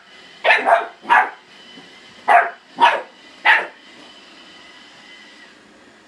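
Small dog barking at a Roomba robot vacuum: six sharp, high barks in two quick groups of three, then quiet.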